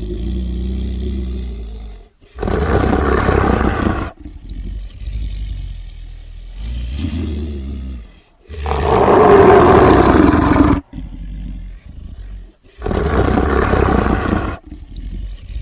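Were-beast monster sound effect: a string of about seven separate snarling growls and roars, each lasting a second or two, with the loudest roar about nine seconds in, its pitch falling as it goes.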